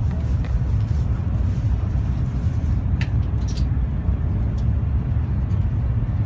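Steady low rumble of a Shinkansen N700-series bullet train running, heard inside the passenger car, with a few faint clicks about halfway through.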